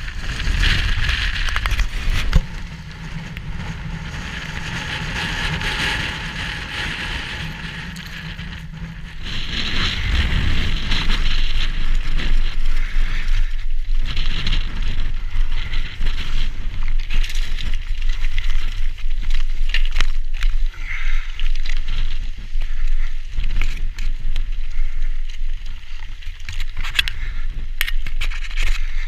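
Mountain bike rolling down rock slabs and loose rocky trail: tyres crunching over stone and the bike rattling and clattering, getting louder and busier from about nine seconds in.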